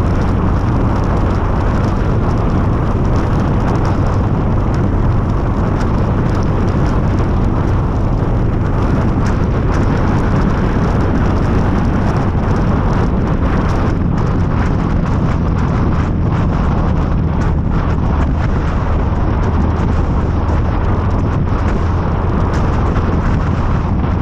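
Harley-Davidson Street Glide's V-twin engine running steadily at cruising speed, with wind buffeting the camera microphone.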